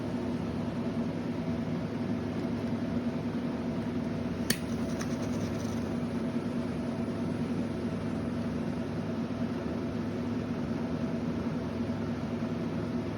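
Butane torch flame burning steadily, an even rushing noise with no change, and one sharp click about four and a half seconds in.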